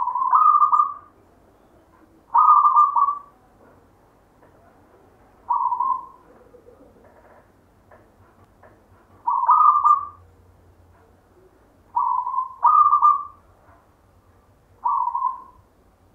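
Zebra dove (perkutut) cooing: seven short coo phrases, spaced a couple of seconds apart, two of them in quick succession about twelve seconds in.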